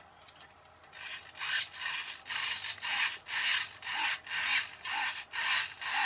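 Small hobby servo buzzing as it is swung back and forth by a servo tester, in short repeated bursts about two a second that begin about a second in. It is steering a toy jet ski's water-jet nozzle.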